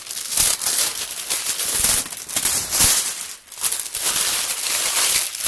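Packaging rustling and crinkling as a shipping box is unpacked by hand, in quick strokes with a short pause about three and a half seconds in.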